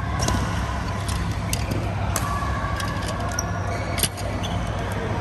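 Badminton rally: several sharp racket hits on the shuttlecock, roughly a second apart, over a steady low hum.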